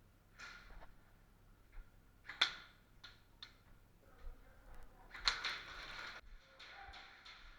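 A few scattered sharp clicks and cracks, the loudest about two and a half seconds in, then about a second of rustling noise about five seconds in.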